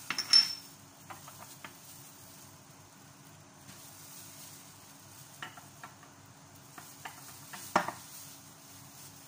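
Small dishes being set down on a stone countertop: a sharp clink with a short ring at the start, light taps and clicks through the middle, and a second loud knock near the end.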